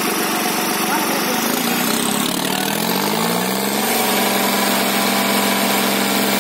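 Diesel tractor engines running, the New Holland 3630 nearest. A little past two seconds in, an engine revs up over about two seconds and then holds at the higher speed.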